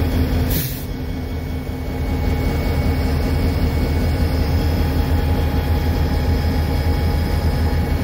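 EMD SD38-2 locomotive's 16-cylinder 645 diesel engine running with a steady low drone as the locomotive pulls past, with a short hiss about half a second in.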